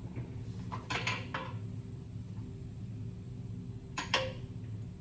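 Light metallic clinks and rattles of air compressor fittings being handled and fitted, a couple of short clusters about a second in and near the end, over a steady low hum.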